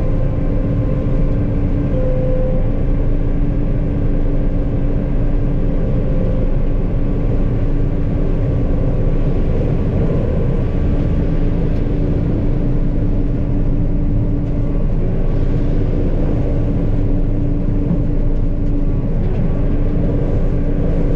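Combine harvester running steadily while shelling corn: a constant engine and machinery drone with a steady hum, at an even level throughout.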